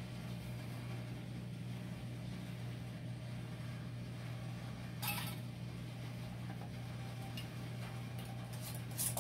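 Filled glass canning jars with metal lids being handled on a counter, giving two short clinks, about five seconds in and near the end, over a steady low hum.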